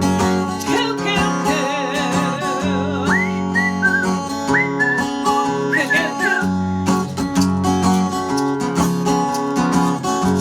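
Live band with acoustic guitar and bass playing an instrumental break, with bird-like whistles over it: a warbling trill about a second in, then several short rising whistles.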